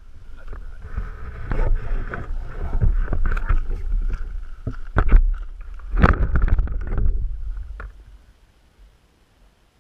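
Handling noise from a small action camera: rubbing and bumping against a padded jacket, then several sharp knocks as it is set down on wooden boards. It dies away about eight seconds in.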